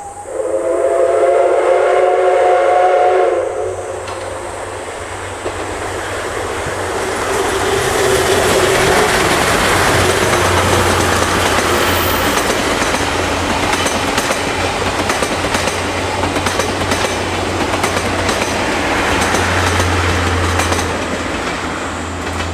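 The steam whistle of the C57 180, a two-cylinder Japanese steam locomotive, gives one long blast of about three seconds. The locomotive then approaches and passes working under steam, and the noise builds to its loudest. The coaches follow with a fast run of clicks from the wheels over the rail joints.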